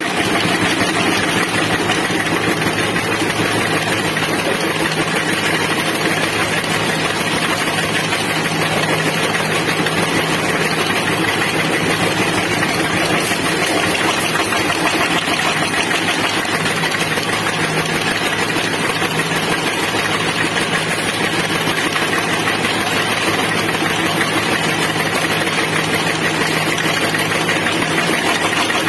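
A machine running steadily with an even, engine-like drone and no pauses.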